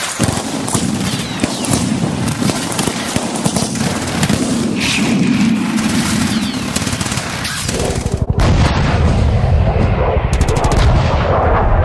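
Battle sound effect of rapid machine-gun and rifle fire. About eight seconds in, the shooting gives way to a steady, loud, low engine rumble.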